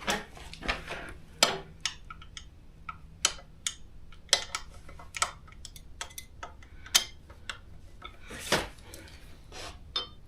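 Small metal bolts, nuts and hand tools clicking and clinking irregularly as they are handled and fitted on a scooter frame.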